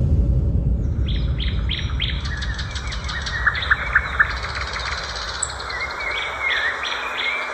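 Birds chirping in a run of quick, repeated short calls starting about a second in, over a steady low rumble.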